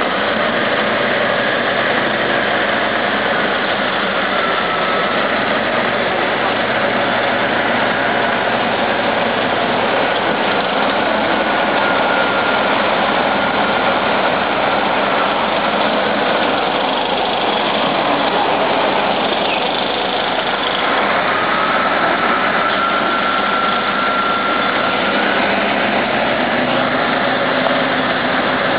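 Heavy diesel engines of a crawler bulldozer and a Tatra 815 dump truck stuck in mud running steadily: a dense, loud drone, with a faint high whine at times.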